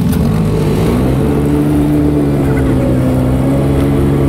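ATV engine pulling away and picking up speed, its pitch rising over about the first second and a half, then running steadily at cruising speed.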